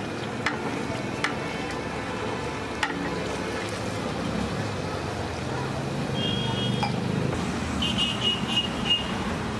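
Busy street ambience with steady traffic noise, a few light knocks in the first three seconds, and short high-pitched tones twice in the second half.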